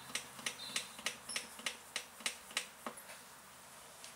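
Hand-operated oil pump clicking sharply with each stroke, about three clicks a second, as gear oil is pumped into a differential; the clicking stops about three seconds in.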